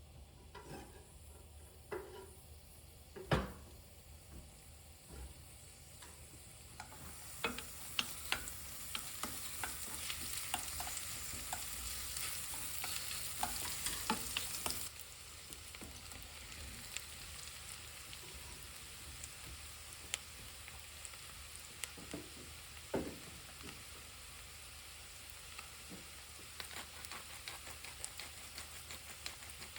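Food sizzling in a frying pan, with the clicks and knocks of a utensil stirring it. There is a sharp knock about three seconds in; the sizzle grows louder from about seven seconds in and cuts off suddenly around fifteen seconds.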